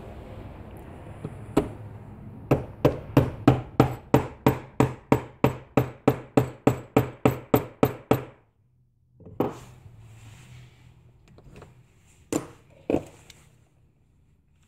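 A mallet with a plastic face strikes a socket in a fast, even run of about twenty blows, roughly four a second, then three more single knocks. The blows drive a locking ring collar down against its spring into a GM power brake booster's plastic hub until it seats.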